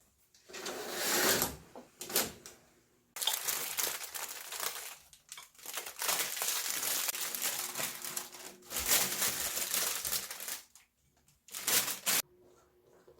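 Rustling and crinkling noise in several bursts lasting one to two and a half seconds, separated by short pauses.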